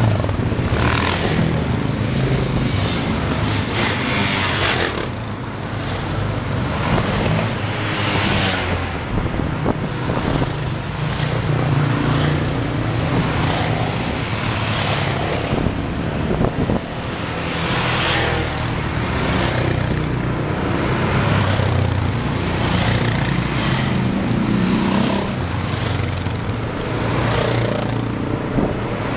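A column of sport quad bikes (ATVs) riding past one after another, their engines swelling and fading as each goes by.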